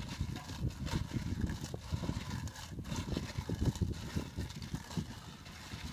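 Hands stirring and rubbing small shellfish in a stainless steel bowl: a continuous irregular clatter and scrape of shells knocking against each other and against the metal.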